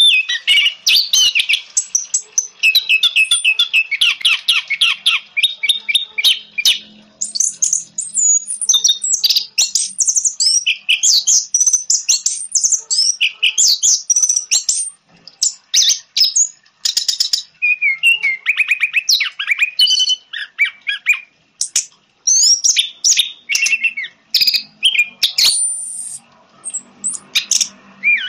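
Orange-headed thrush singing a fast, varied song of chattering trills and whistled phrases, broken by brief pauses.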